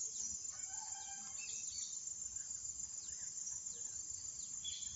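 Faint background of insects chirping in a steady high-pitched chorus, with a few short bird calls over it.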